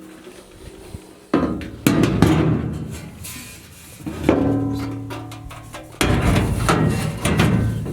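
A loose sheet-metal transmission hump panel being handled and set down, clanking several times; each knock leaves the steel ringing for a moment before it fades.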